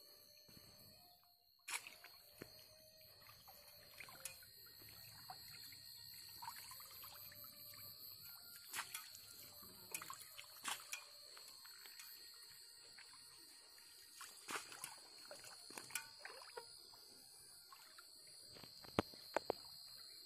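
Faint sloshing and small splashes of someone wading through shallow water, with scattered clicks, over a steady high-pitched tone.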